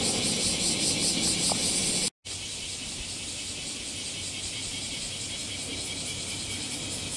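A summer chorus of cicadas, a high, evenly pulsing drone, over a low outdoor rumble. The sound cuts out for a split second about two seconds in and comes back quieter, with a faint steady hum underneath.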